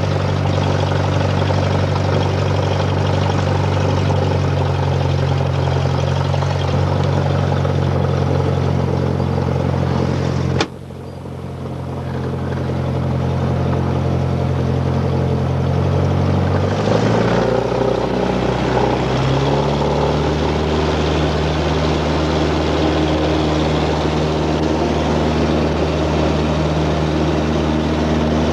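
Airliner's propeller engines droning steadily in the cabin. The drone drops away abruptly about ten seconds in and builds back, then shifts in pitch about six seconds later and settles again.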